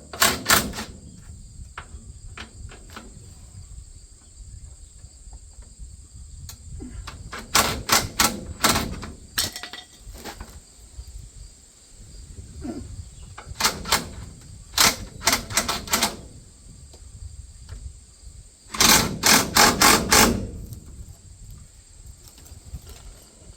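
Hammer tapping on metal in four short bursts of quick blows, the last and loudest burst about nineteen seconds in. Crickets chirp steadily underneath.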